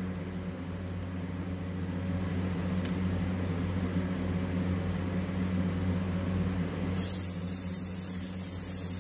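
Airbrush compressor running with a steady low hum; about seven seconds in, the gravity-feed airbrush starts spraying with a sudden, high, steady hiss.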